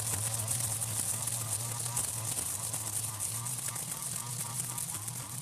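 String trimmer (strimmer) running steadily, its motor hum holding a near-constant pitch under a high whir from the spinning cutting line.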